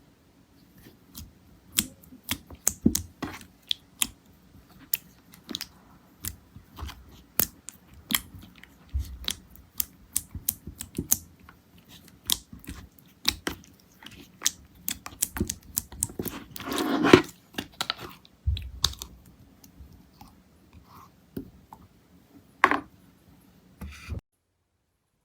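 Slime being pressed and stretched by hand, giving many irregular sharp clicks and pops, with a denser, louder squishing stretch about two-thirds of the way through; it stops shortly before the end.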